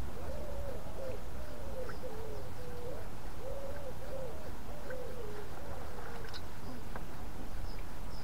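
A bird's low cooing call, a run of soft hoots repeated about twice a second that fades out about six seconds in, over low wind rumble on the microphone.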